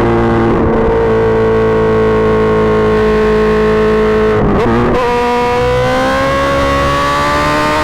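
Suzuki GSX-R1000 inline-four running through an M4 GP Series slip-on exhaust under steady throttle. The note sags slightly, breaks briefly about halfway through, then climbs slowly as the bike pulls again.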